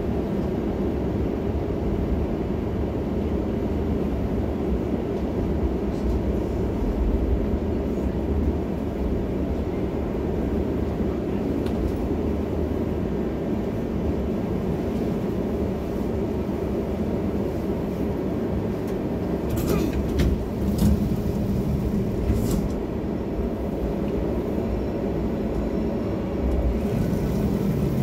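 Helsinki city tram running along its rails, heard from inside the car: a steady low rumble, with a few short sharp clicks about two-thirds of the way through.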